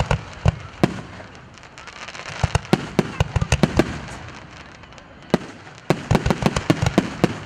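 Aerial firework shells bursting in quick volleys: many sharp cracks and bangs, bunched into rapid clusters about two to four seconds in and again from about six to seven seconds.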